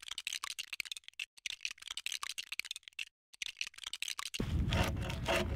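Rapid, irregular clicking and tapping, many small clicks a second. About four seconds in it cuts off abruptly to a steady rushing noise.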